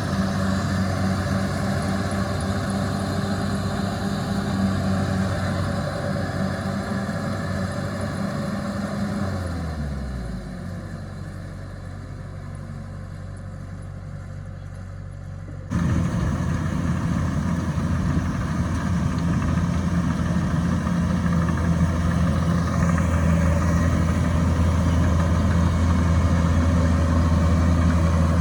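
Kubota DC105X combine harvester's diesel engine running steadily. About nine seconds in its pitch falls away and it runs quieter, then about six seconds later it jumps abruptly back to full, steady running.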